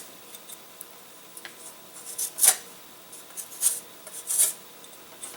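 A hand tool scraping along a balsa wood wing edge in several short strokes, the loudest about halfway through.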